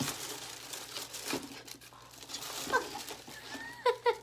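Shoe packaging crinkling and rustling as a pair of shoes is unwrapped by hand, with a few short, squeaky chirps near the end.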